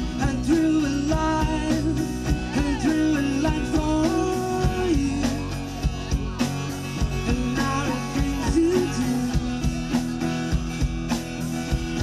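Live band music: a woman singing into a microphone over guitar and a steady beat.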